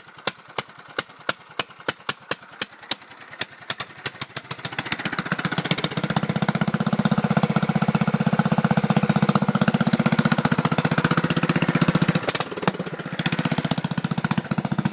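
Mud tractor's engine idling slowly with separate, evenly spaced firing pops, then revved up about four seconds in and held at high speed. The engine speed dips briefly near twelve seconds in, then picks up again.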